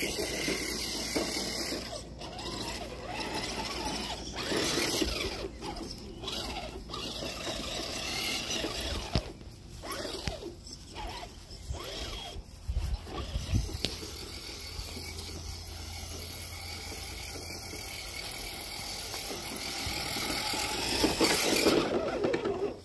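Toy remote-control car's small electric motor and gearbox whirring as it drives over grass, cutting out briefly several times.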